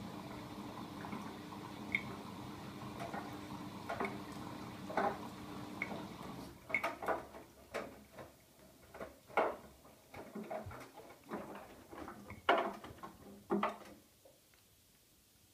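Siemens iQ700 WM16S793GB washing machine on its rapid 20-minute program: a steady motor hum stops after about six seconds. A run of irregular knocks and clicks from the machine follows, then it goes quiet near the end.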